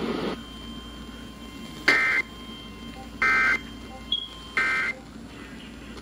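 Emergency Alert System end-of-message code playing through a radio's speaker: three short, buzzy two-tone data bursts about 1.3 seconds apart. They mark the end of the flash flood warning broadcast.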